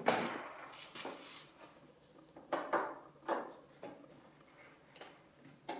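A string of short plastic knocks and rustles from hands handling and fitting parts on a painted Audi S3 8L front bumper, about one a second, the loudest at the start and around three seconds in.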